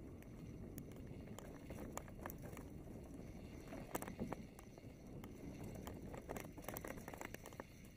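Mountain bike riding along a forest trail: a steady low tyre rumble with scattered clicks and rattles, and a brief cluster of louder knocks about four seconds in as the bike comes off a wooden boardwalk onto dirt.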